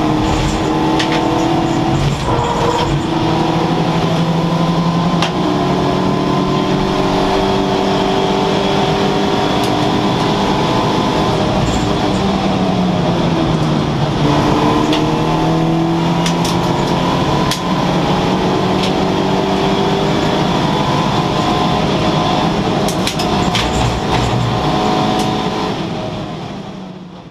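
Volkswagen Racing Cup car's engine heard from inside the caged cockpit, revving up through the gears and dropping back on shifts and braking, with rising and falling pitch. The sound fades out near the end.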